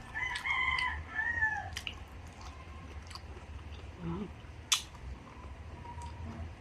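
Close-up eating sounds: chewing, with scattered sharp clicks and a short pitched call in the first second and a half. The loudest click comes about three-quarters of the way through.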